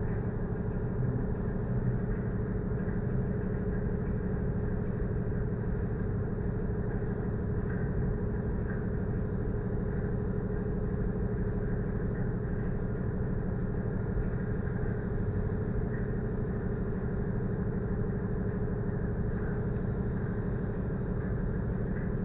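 A cargo ship's engine machinery running steadily: an even, unchanging low rumble and hum.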